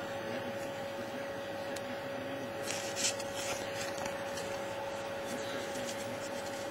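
Trading cards sliding and rubbing against each other as a stack of football cards is thumbed through, with one brief louder rustle about three seconds in, over a steady faint hum.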